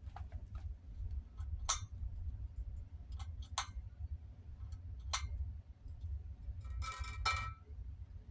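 Pull-chain switch on a Hunter ceiling fan's light kit clicking four times, a second or two apart, with the metal chain clinking; the last pull near the end comes with a brief rattle. A steady low hum runs underneath.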